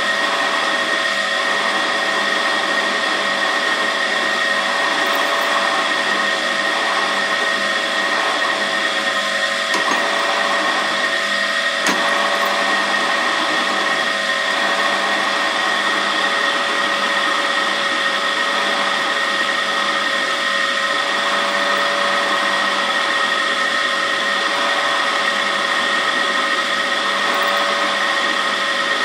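Benchtop drill press motor running steadily while its bit bores slowly into a thick block of metal held in a machine vise.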